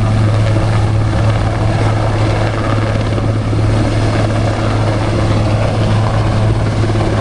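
Water-bombing helicopter running loud and steady, its rotor and engine making a constant low drone.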